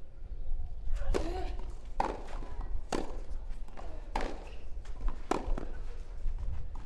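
Tennis rally: rackets strike the ball back and forth, five sharp hits about a second apart.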